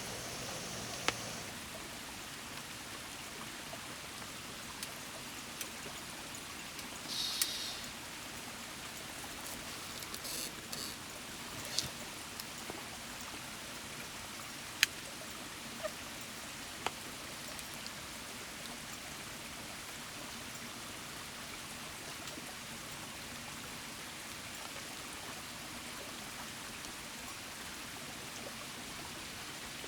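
A river stream babbling steadily, with a few sharp clicks or taps scattered through the first half, the loudest about halfway through.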